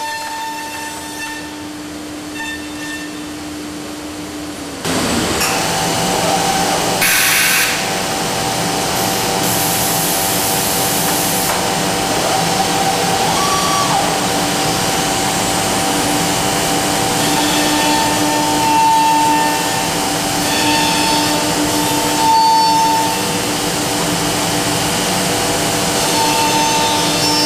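Busellato Jet Optima C21 CNC woodworking center running while machining a wooden door: a steady whine of several held tones. About five seconds in it becomes louder with a rushing noise, with short spells of hiss after that.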